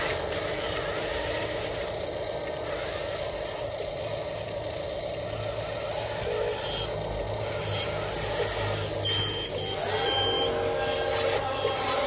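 Huina radio-controlled wheel loader backing up, its built-in sound module playing a reversing beep over a simulated truck engine.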